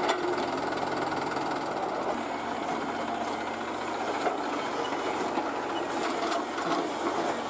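Tata Hitachi EX200 LC excavator's diesel engine running steadily with a fast, even clatter, and a couple of faint knocks partway through.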